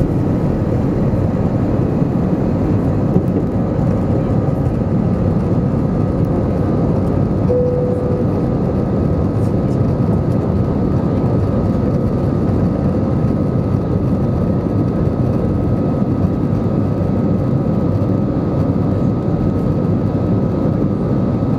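Airbus A320 jet engines at high thrust heard from inside the cabin over the wing as the airliner climbs away just after liftoff: a loud, steady rush of engine and air noise with a constant high whine.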